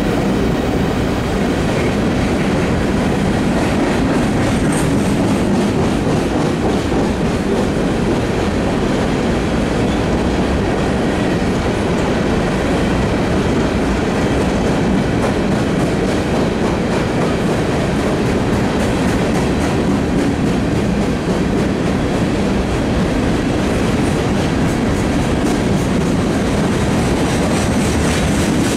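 A train of empty coal hopper cars rolling past in a steady rumble, with the wheels clicking over the rail joints.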